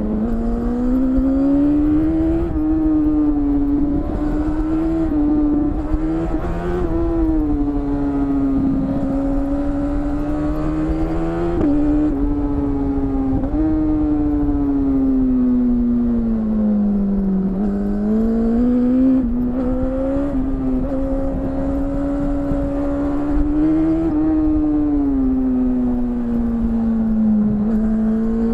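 BMW S1000RR inline-four engine heard from the rider's seat, running through an Akrapovic exhaust. Its note rises and falls smoothly with the throttle through a run of bends, with a couple of brief dips in the note about halfway through. Low wind rush runs underneath.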